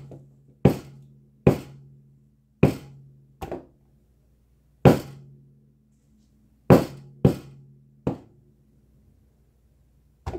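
A small wooden-handled hammer smacking wet acrylic paint on a canvas panel, about nine sharp strikes at irregular intervals, some lighter than others. The strikes use the hammer's solid face, which splashes the paint outward instead of squishing it. A faint low steady hum runs under them and stops about eight seconds in.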